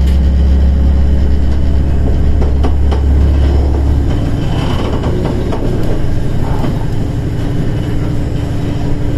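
KiHa 110 diesel railcar heard from its cab: the diesel engine runs under power with a steady low drone that drops away about four seconds in, leaving the rumble and rattle of the wheels on the track. A few sharp clicks sound in the first few seconds.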